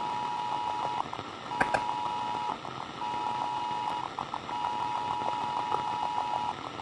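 Steady electronic beep tone of two close pitches, coming in long pulses of one to two seconds with short gaps, over the hiss of radio static, with a few faint clicks.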